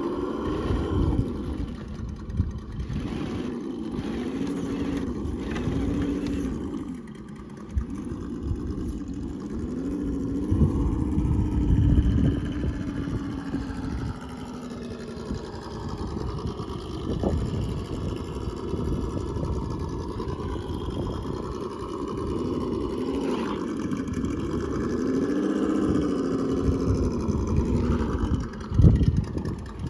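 RC scale crawler truck's electric motor and geared drivetrain whining, the pitch rising and falling again and again as the throttle is worked while it climbs wooden ramps and steps. A few sharp knocks of tyres and chassis on the wooden planks stand out, the loudest near the end.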